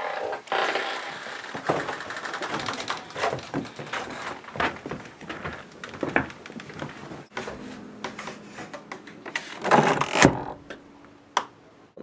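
Several people moving into a small room: footsteps, knocks and handling clatter, with a door among them and a louder scrape about ten seconds in.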